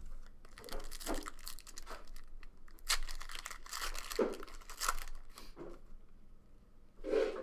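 A foil trading-card pack being torn open and its wrapper crinkled by hand: a run of irregular, sharp crackles and rips.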